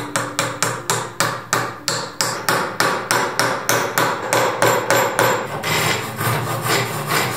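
A hammer striking the end grain of a wooden handle in quick, even blows, about three a second, driving a cross-peen hammer head down to seat it on the handle. Near the end the blows give way to a saw cutting off the protruding handle end above the head.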